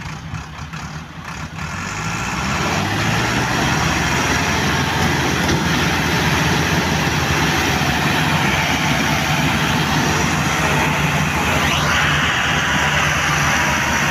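Two diesel tractors, a Massey Ferguson 385 and a second tractor hitched ahead of it, revving up and running hard under full load as they try to pull a stuck, heavily loaded sugarcane trolley free. The engines climb to a loud, steady pitch within the first couple of seconds and hold there.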